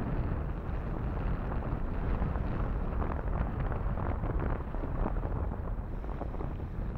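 Wind buffeting the camera's microphone in a steady rumble, with small waves washing in on the sand.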